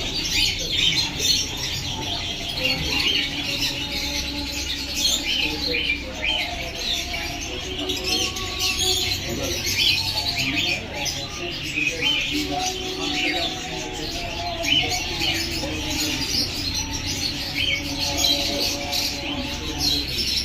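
A dense, continuous chatter of caged birds chirping, many short high calls overlapping with no break, over lower drawn-out pitched sounds.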